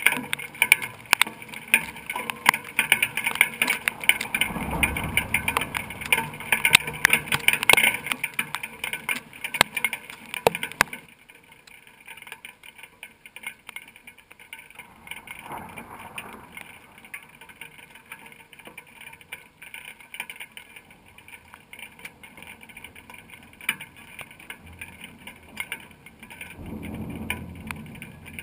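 Thunderstorm: heavy rain falling with many crackles and clicks, which drops away abruptly about eleven seconds in to a much quieter hiss. Low rolls of thunder come about five seconds in, again around sixteen seconds, and near the end.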